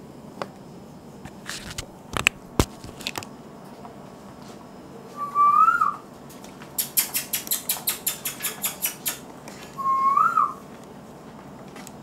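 Indian ringneck parrot giving two short, rising whistles several seconds apart. Between the whistles comes a quick run of sharp clicks, about six a second for some two seconds, and a few single clicks come earlier.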